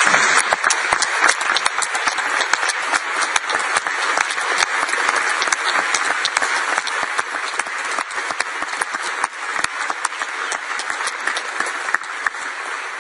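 A chamber full of legislators applauding: many hands clapping together, loudest at the start and gradually easing off, dying away near the end.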